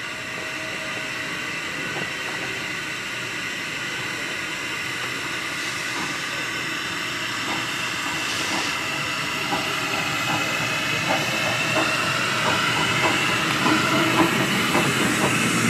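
Miniature Hunslet 0-4-0 saddle-tank steam locomotive pulling away with its cylinder drain cocks open. Its steady steam hiss grows louder as it draws near, and from about halfway through the wheels click over the rail joints.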